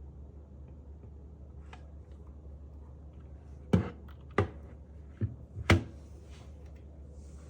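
Hands handling hard objects on a desk: four short knocks a little over halfway through, then a brief rustle, over a steady low electrical hum.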